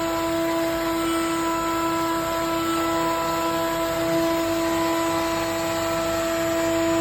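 CNC milling router running, its spindle giving a steady high whine over a constant rushing noise.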